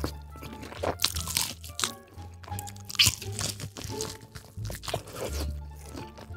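A person biting and chewing crunchy food close to the microphone, with irregular loud crunches, over quiet background music with a steady low bass line.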